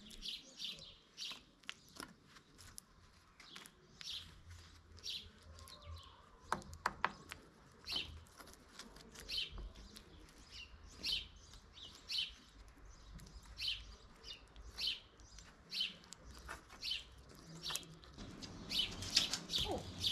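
A bird chirping over and over, short high chirps about once a second, coming faster near the end. A few sharp clicks sound about six to seven seconds in.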